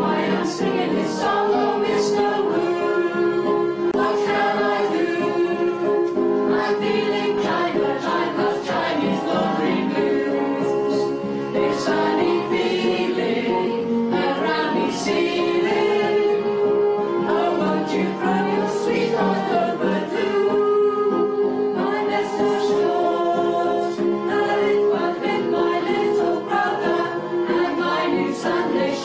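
A group of stage performers singing a song together in chorus over musical accompaniment.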